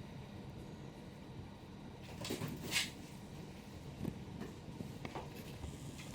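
A brief scratchy rustle a little over two seconds in, followed by a few light taps and knocks, over a low steady hum.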